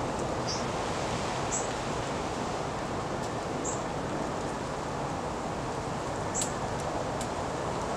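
Small songbirds at seed feeders giving four short, high chip calls spaced one to three seconds apart, over a steady outdoor background hiss.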